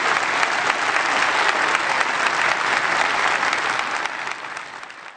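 Large audience applauding with steady clapping that fades out near the end.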